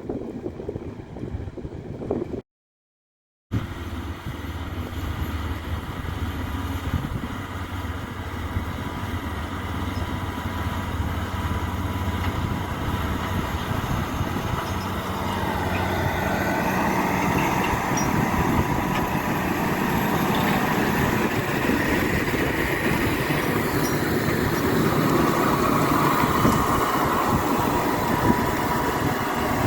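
Farm tractor engine working in the field, a steady low drone that grows gradually louder through the second half as the machine comes nearer. The sound drops out briefly a couple of seconds in.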